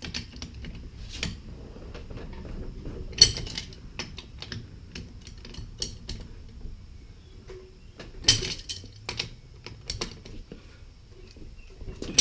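Ratchet wrench clicking in uneven runs while tightening a wheel's lug nuts, with a couple of louder knocks, one about three seconds in and one about two-thirds of the way through.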